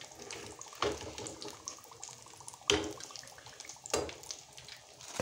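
Hot oil sizzling in a kadhai as deep-fried samosas are lifted out with a perforated metal skimmer, with about four sharp knocks about a second or so apart.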